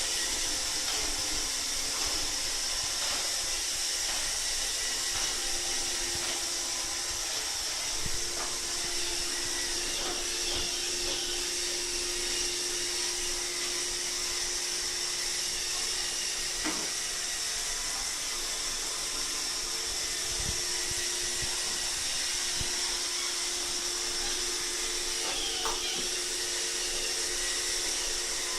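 iRobot Roomba 631 robot vacuum running steadily, a motor whine with a high hiss and a low steady hum, with a few faint clicks now and then.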